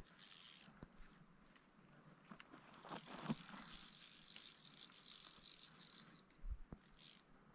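Fly reel's click-and-pawl drag ratcheting as the spool turns: a fast, faint run of clicks lasting about three seconds around the middle.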